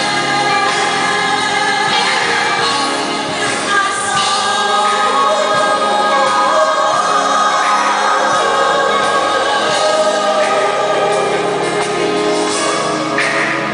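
Music with a group of voices singing together, holding long notes that change pitch every second or so.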